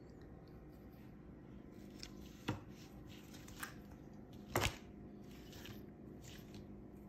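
Faint handling rustles of a clear plastic garment bag and fabric, with a few sharp crinkles, the loudest about two and a half and four and a half seconds in.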